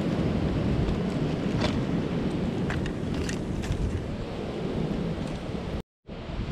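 Wind rumbling on the microphone in a steady low roar, with a few faint clicks through it. The sound cuts out completely for a moment near the end.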